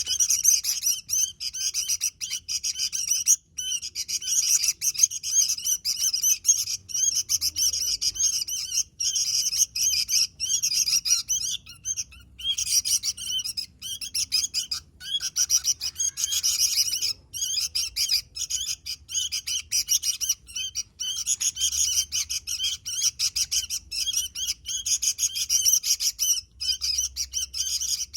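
Sooty-headed bulbul (kutilang) singing and chattering incessantly: rapid, high, almost unbroken chirps and twitters with only brief pauses.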